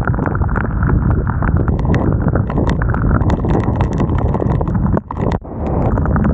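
Wind rumbling on a helmet-mounted camera's microphone while cycling in rain, with dense irregular tapping of raindrops on the camera. The rumble drops out briefly twice about five seconds in.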